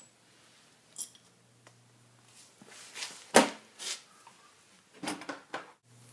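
A few scattered metal clinks and knocks from bolts and tools being handled, the sharpest about three and a half seconds in, with a quick cluster around five seconds.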